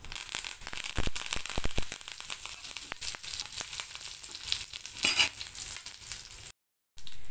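Fresh curry leaves and cumin seeds sizzling and crackling in hot oil in a pan, a tempering (tadka/phodni), with a run of sharp pops about a second in. The sound cuts out for a moment near the end.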